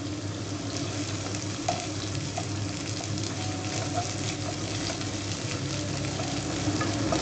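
Sliced red onions sizzling steadily in hot oil and ghee in a kadai, with a continuous crackle, while a wooden spatula stirs them.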